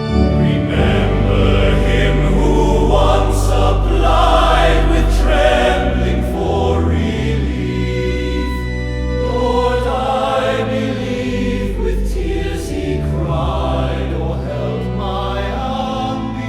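Choir singing a slow hymn in sustained chords over a held organ-like bass.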